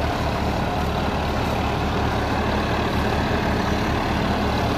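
Swaraj 963 FE tractor's diesel engine running steadily under load in fourth low gear, working a Jaswant super seeder through a burnt stubble field, the seeder's rotor churning the soil beneath the engine's drone.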